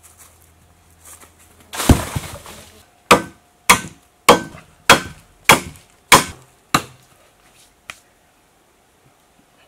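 Long knife chopping into wood: seven sharp, even strikes about two thirds of a second apart. They follow a loud, rough noise about two seconds in that lasts about a second.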